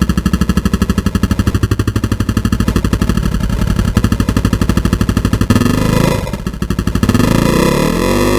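A motor or engine running with a rapid, even pulse of about eight beats a second; near the end its pitch slides up and down.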